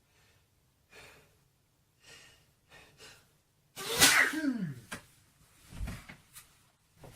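A man's allergy sneeze, set off by dust: a few short catching breaths build up, then one loud sneeze about four seconds in, its voice falling in pitch as it trails off.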